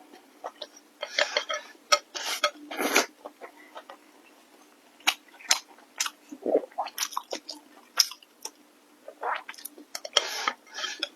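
Close-miked eating: wet chewing of food, with sharp mouth clicks and smacks coming in irregular bouts and a brief lull in the middle.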